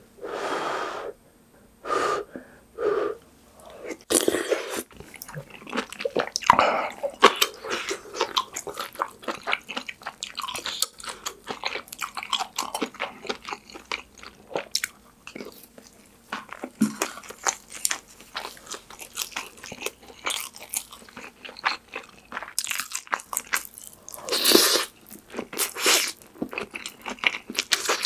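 Close-miked eating sounds: a person chewing and biting mouthfuls of pork kimchi stew with ramen noodles and rice, with wet smacking and crunches of kimchi. A few longer, louder slurps of the stew come in the first few seconds and again near the end.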